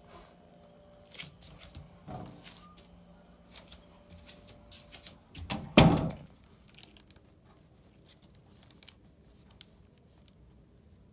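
Scattered small clicks and knocks over a faint steady hum, then a loud thump with a rustle about six seconds in, after which the hum is gone and only faint handling noise remains.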